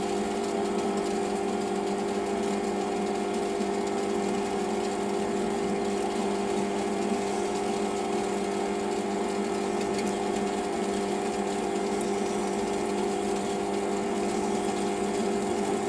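Small metal lathe running steadily at slow speed, about 320 rpm, a steady hum of its motor and drive, while a quarter-inch reamer is fed from the tailstock into the spinning off-centre eccentric.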